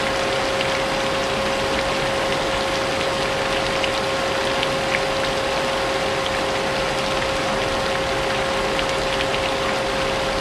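A vacuum cleaner running steadily, its motor whine holding one pitch, layered with the patter of rain.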